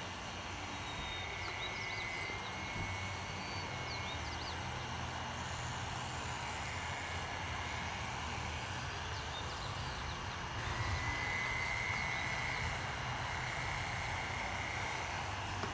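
Radio-controlled model airplane's engine whining in flight, growing louder twice as the plane passes close, most strongly from about two-thirds of the way in.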